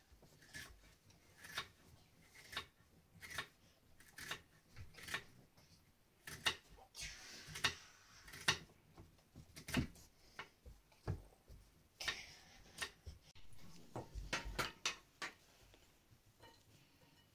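Kitchen knife cutting food on a wooden cutting board, a short knock as the blade meets the board with each slice, roughly one a second with some quicker runs, plus a little scraping.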